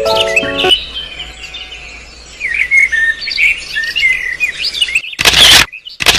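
Birds chirping and tweeting in quick, rising and falling calls. A music phrase cuts off within the first second, and about five seconds in a very loud burst of noise breaks in, stops, and starts again at the end.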